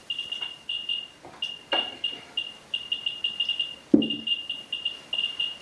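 Ludlum 12 rate meter's audio counting pulses from a helium-3 neutron detector: short high beeps, several a second at random intervals, each one a detected neutron from the polonium-beryllium source. Two thumps, about two seconds and four seconds in, come from a polyethylene moderator block being handled.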